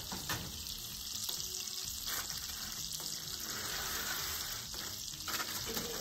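Steady sizzling hiss from hot baked dishes just out from under the oven broiler, with a few light knocks of the dishes and oven rack.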